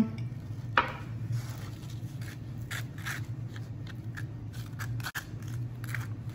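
Butter knife scraping mashed avocado across a slice of toasted bread in a run of short, irregular strokes, with a sharper knock about a second in.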